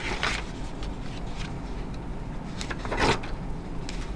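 Paper pages of a spiral-bound nautical almanac being turned by hand: a few short rustling swishes of paper, the loudest about three seconds in.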